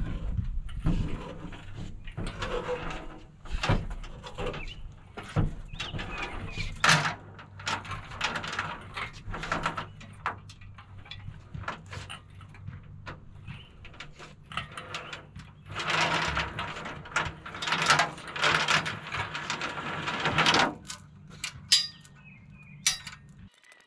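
Steel engine hoist with an axle hanging from its chain being rolled and worked over asphalt: irregular clanks and knocks of metal and chain, with rattling scrapes of the casters. The rattling is densest about two-thirds of the way through.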